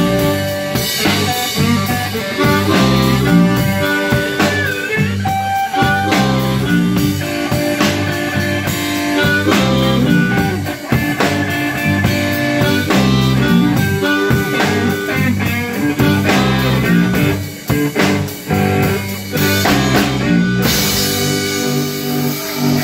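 Live blues band playing: a harmonica cupped against a vocal microphone and played through the PA, over drum kit and electric bass. Near the end the low band sound drops away and a steady noisy wash takes over.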